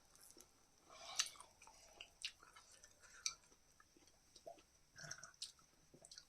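Faint, close-up chewing of grilled chicken sekuwa, with a few short, sharp crunches and clicks at irregular intervals.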